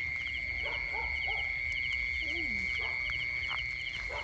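Night insect chorus: a steady high-pitched drone with rows of short chirps repeating at an even rhythm. A few faint short calls sound lower down, one falling in pitch about two seconds in.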